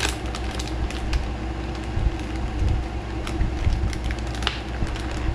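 Plastic soft-bait packet crinkling and crackling as its zip seal is pulled open by hand, in scattered sharp crackles over a steady low hum.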